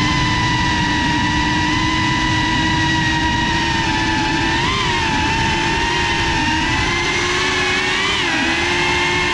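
Electric motors and propellers of a GEPRC FPV quadcopter, heard from the GoPro riding on it: a steady high whine with a buzz under it. Its pitch rises briefly about five seconds in and dips and recovers near the end as the throttle changes.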